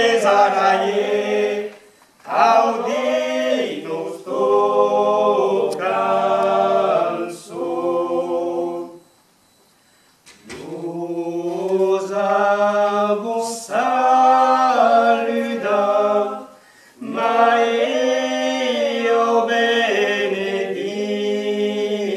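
A small mixed group of voices singing an Occitan song a cappella in close harmony. The phrases are broken by short breaths and one longer pause of about a second and a half near the middle.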